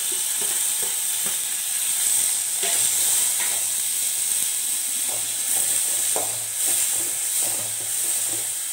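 Diced carrot, tomato and cucumber sizzling in hot oil in a metal pan, with a steady hiss, while a perforated metal ladle stirs and scrapes through them in short strokes.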